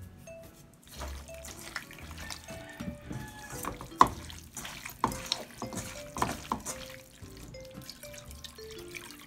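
A hand squeezing and mashing raw cubed pork with salt in a wok: wet squelches and slaps, sharpest about four seconds in, over light background music.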